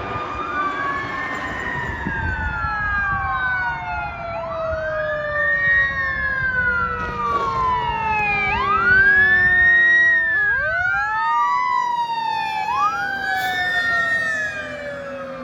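Fire truck siren wailing, rising and falling in pitch about every four seconds over a lower siren tone that slides slowly down. A second, lower wail joins about ten seconds in.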